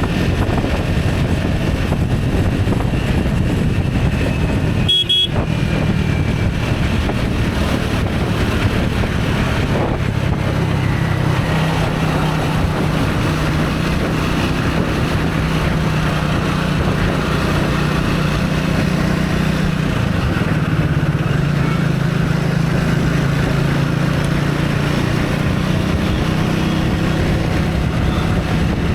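Motor vehicle engine running steadily on the move in road traffic, a constant low hum under a noisy rush. About five seconds in there is a brief high beep.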